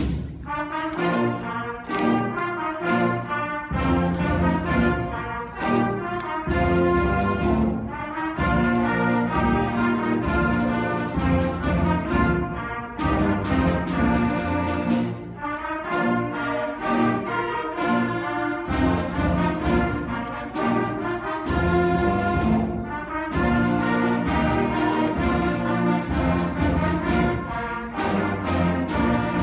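A school concert band of woodwinds and brass playing a piece together, with the brass to the fore and regular accented chords.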